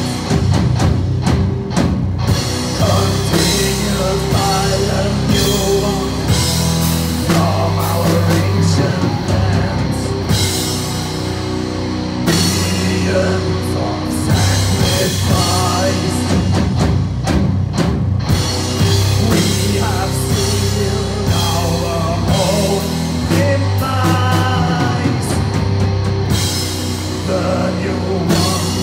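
Doom metal band playing live: heavy, sustained electric guitar and bass chords over a drum kit, loud and continuous.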